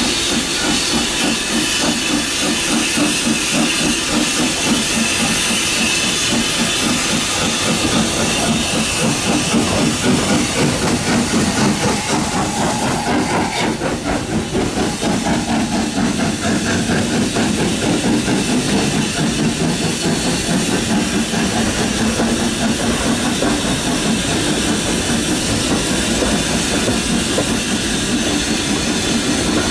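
Steam locomotive hauling a passenger train under power, with steady exhaust chuffing and hissing steam as it passes close by. Its coaches then roll past over the track.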